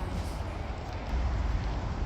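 Steady background noise with a low rumble, with no clear distinct event.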